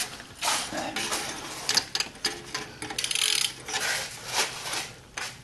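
Irregular metal clicks and clanks from exhaust parts being fitted together as the muffler goes on, with a quick run of clicks a little past halfway.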